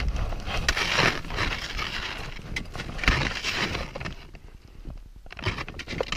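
Irregular crunching and scraping of snow and ice with scattered knocks and clicks, from a climber shifting inside a glacier crevasse. The two larger crunches come about a second in and about three seconds in, and the sound eases off near the end.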